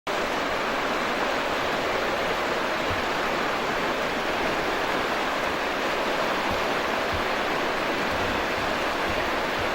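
Steady rushing of fast white water, an even roar with no change.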